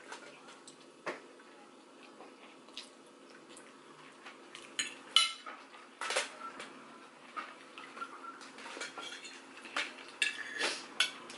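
Forks clinking and scraping against plates as noodles are eaten, in scattered short clicks.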